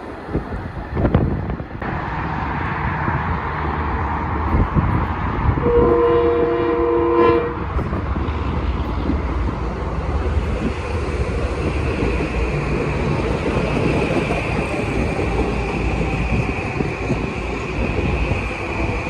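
A train passing close by, a steady rumble with wheel clatter on the rails. About six seconds in its horn sounds one chord-like blast lasting about a second and a half, and from about ten seconds on a steady high whine runs over the rumble.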